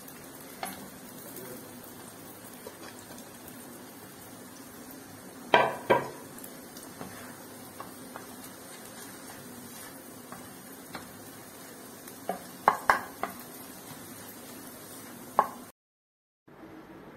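Black plastic spatula stirring a soft egg-and-potato mixture in a non-stick wok, knocking sharply against the pan a few times in small clusters, over a faint steady frying sizzle.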